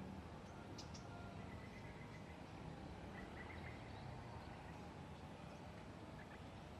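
Faint outdoor background noise, a steady low rumble with a thin wavering hum, and a few short bird chirps scattered through it.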